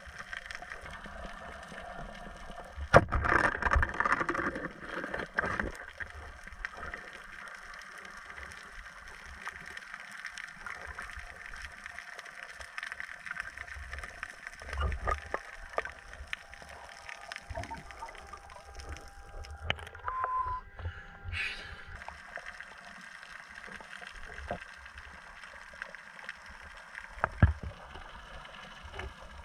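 Underwater sound picked up by a camera during night spearfishing: a steady crackling hiss full of tiny ticks. A sharp knock comes about three seconds in, followed by a couple of seconds of louder rattling and scraping, with a few more knocks later.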